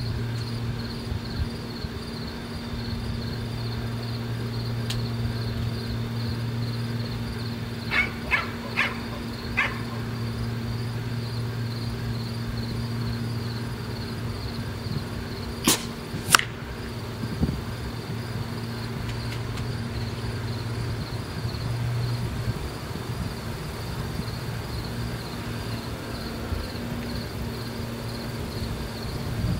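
A steady low hum under continuous pulsing insect chirring. A dog barks four times about eight seconds in. Two sharp cracks about half a second apart come a little past the middle.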